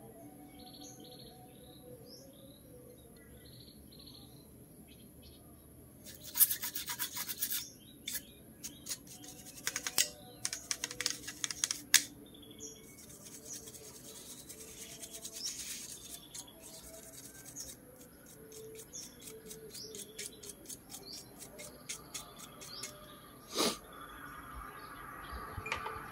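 A brush scrubbing the underside of a circuit board with thinner, in irregular bursts of rapid scratchy strokes starting about six seconds in. A single sharp knock comes near the end.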